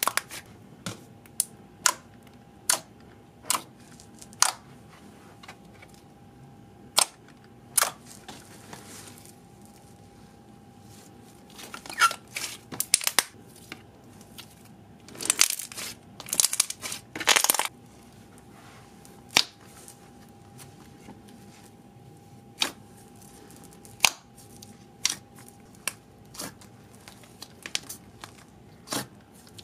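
Fingers poking and pressing thick slime in a plastic jar, making sharp, irregular pops and clicks. About halfway through the slime is pulled and folded, giving a denser run of crackling pops.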